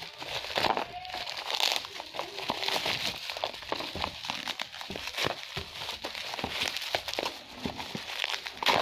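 Bubble wrap and plastic packaging crinkling and crackling in the hands as a small box is unwrapped from it, in many short irregular crackles.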